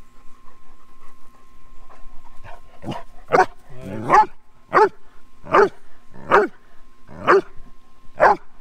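A dog barking in short, high yips, about one a second, starting about three seconds in.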